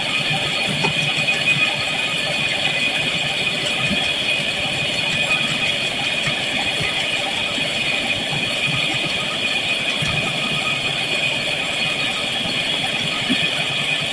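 Metal coil fish scaler scraping and rattling over a large fish's scales on a steel tray of ice, over a steady mechanical hum.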